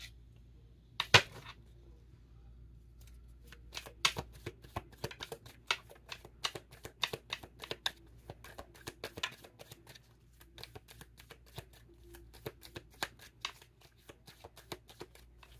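A deck of tarot cards being shuffled by hand: one sharp snap about a second in, then a long run of quick card clicks and flicks.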